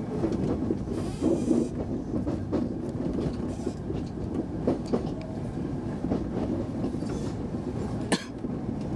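Kintetsu Minami Osaka Line electric train heard from the driver's cab as it runs over the points and rail joints into a terminal station. A steady wheel rumble carries scattered clicks, with one sharper knock about eight seconds in.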